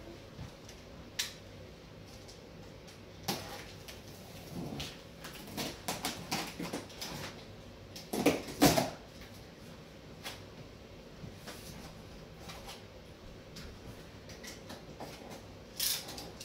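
Utility knife cutting along the taped top seam of a large cardboard box, with scattered scrapes and clicks of the cardboard. The loudest scraping comes about eight seconds in, and the cardboard flaps are pulled open near the end.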